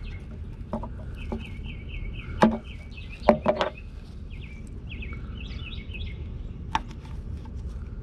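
Rubber grommets being worked out of a car's sheet-metal footwell: scattered sharp clicks and knocks of the pry and metal, the loudest about two and a half seconds in. A run of quick high chirps repeats through the first half.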